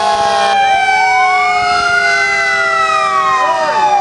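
Several fire engine sirens wailing at once, their pitches rising and falling across each other. A stuttering horn blast sounds over them at the start and cuts off about half a second in.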